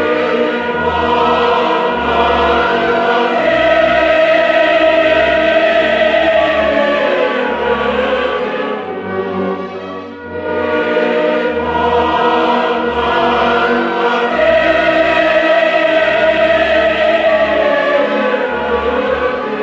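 Background choral music: a choir singing long held notes in two similar phrases, each with a high sustained note that falls away near its end.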